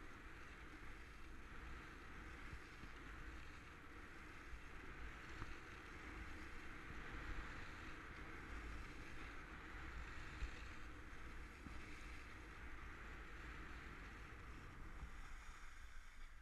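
Steady rushing hiss of skis sliding fast over packed snow, mixed with wind buffeting the microphone, with a single light tick about ten seconds in.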